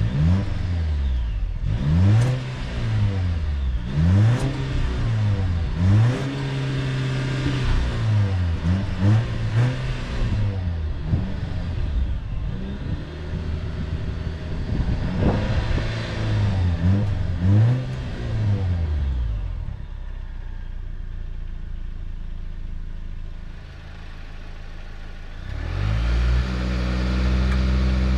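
2023 Volvo XC90 B6's 2.0-litre turbo-petrol mild-hybrid four-cylinder accelerating hard through its automatic's gears: the revs climb and drop back at each upshift, about every two seconds at first, with a sharp pop at several of the shifts through what sounds like a sports exhaust. Later the engine is quieter for a few seconds, then a louder steady drone near the end.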